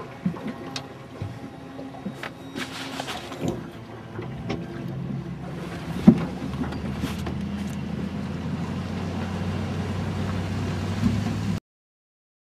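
A boat riding on its trailer behind a towing pickup truck: loose knocks and rattles from the hull and fittings, then a steady low hum of the tow vehicle that grows louder from about halfway in. The sound cuts off abruptly near the end.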